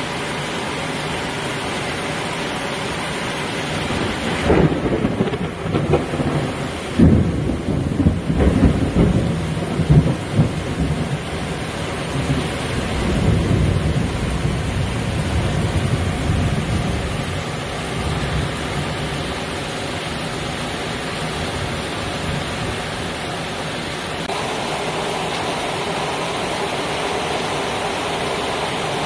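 Heavy thunderstorm rain pouring steadily, with a thunderclap that starts rumbling about four seconds in, cracks loudest twice a few seconds later, and rolls away over the next several seconds. Near the end the downpour grows a little heavier.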